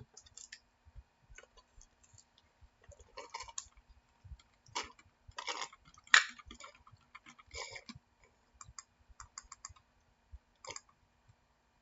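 Scattered light clicks and taps with a few short rustles, from objects being handled at a study desk; the sharpest tap comes about six seconds in.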